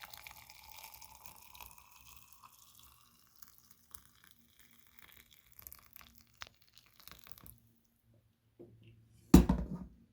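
Freshly boiled water poured over a spoonful of thyme, the pour rising in pitch as the vessel fills and tapering off after about two seconds. Faint clicks follow, then a single loud knock near the end.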